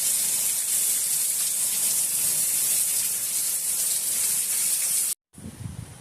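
Heavy rain pouring down in a loud, steady hiss. About five seconds in it cuts off abruptly, and a much quieter stretch with a few low knocks follows.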